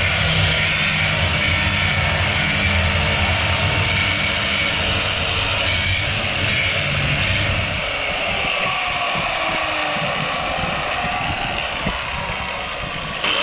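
Electric angle grinder running steadily as it sands rust off the steel chassis rails of a horse trailer. Its low hum drops away about eight seconds in.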